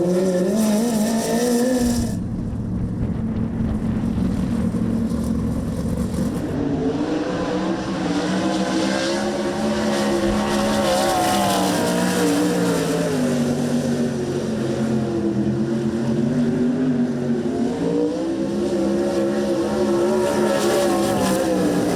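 Sprintcar V8 engines at racing speed, the pitch rising and falling in repeated long swells as the cars accelerate and back off around the track. There is an abrupt change in the engine sound about two seconds in.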